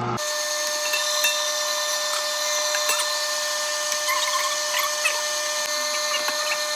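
Cabela's Carnivore #22 electric meat grinder running under load, grinding cooked chicken giblets. Its motor gives a steady whine with one constant tone, under light scraping as the plastic stomper pushes meat down the throat.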